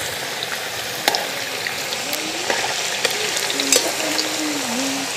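Parboiled potato fingers deep-frying as French fries in hot oil: a steady sizzle with scattered pops and crackles.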